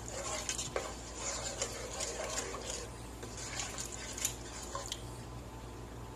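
Spoon stirring a thin sauce in a nonstick pot, with light scrapes and clinks against the pot, stopping about five seconds in.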